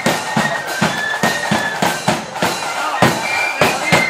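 Marching flute band playing: a high flute melody over a steady drum beat of about two to three strokes a second, the flutes pausing briefly midway while the drums carry on.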